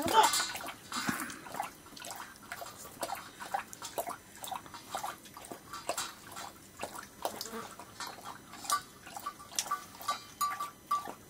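Many small clicks and scrapes of fingers and rice against steel plates as people eat by hand, with a brief animal call in the first second.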